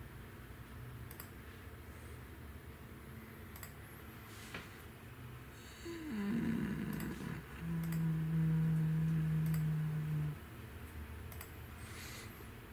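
Computer mouse clicking now and then. About six seconds in, a person hums a low 'mmm' that falls in pitch and then holds one steady note for about three seconds.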